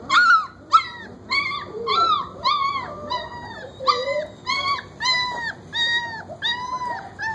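29-day-old German Shepherd puppy whimpering in a steady string of short high cries that rise and fall, about two a second.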